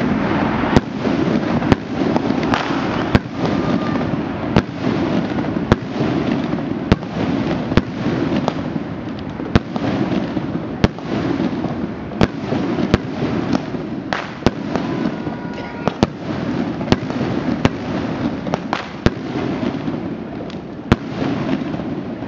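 Many fireworks and firecrackers going off at once: a continuous crackle and rumble broken by sharp bangs about once a second.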